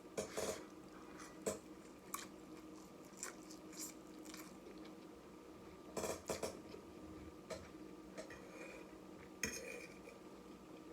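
Cutlery clinking against dishes while eating noodles: scattered short clicks, with a busier cluster about six seconds in.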